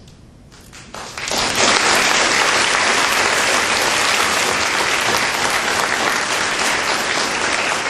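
Audience applauding. The applause breaks out about a second in and holds steady.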